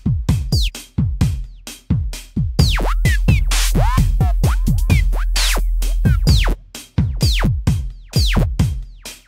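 Electronic intro music: hard drum-machine hits over a steady deep bass, with falling synth swoops.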